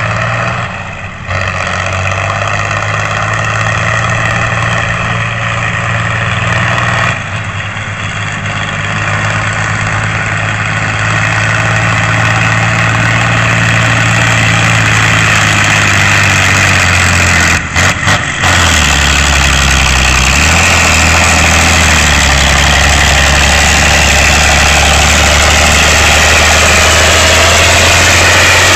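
Straight-piped Ford tractor's diesel engine running under load, a loud, steady exhaust note. It has a few brief dropouts, the last about two-thirds of the way through, after which the note is lower and a little louder.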